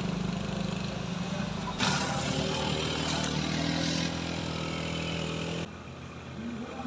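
Vehicle engines working up a steep hill, in three short clips cut together: a Wuling SUV passing close, then a motor scooter carrying two riders climbing, then quieter traffic further off. The sound changes abruptly at each cut, about two seconds in and again near the end.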